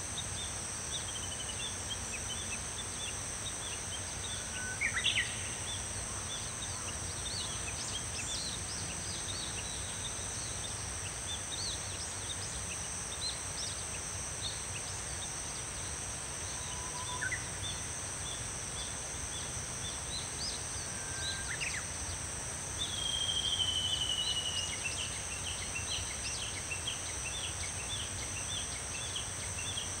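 Cicadas droning steadily in a high, even chorus, with scattered short bird chirps over it. A bird gives a rising whistled call about five seconds in and again around twenty-one seconds, and a louder falling trill near twenty-three seconds.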